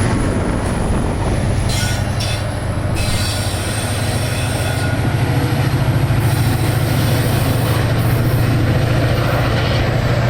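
MBTA commuter rail train at the station: the diesel locomotive runs with a steady low drone that grows a little louder about halfway through, with brief high screeching from the wheels or brakes about two seconds in.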